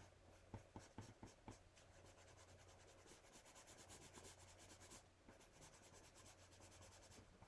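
Faint scratching of a colored pencil shading in quick short strokes over dried white pigment ink on vinyl sticker paper, with a few light taps in the first second and a half.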